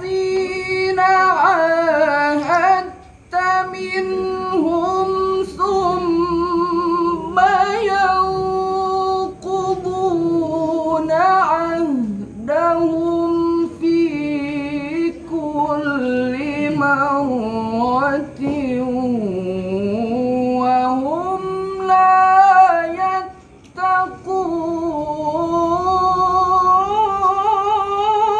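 A solo male Qur'an reciter chanting in maqam Nahawand in a high, melodic voice. He holds long notes with vibrato and ornaments them with sliding runs, pausing briefly twice for breath.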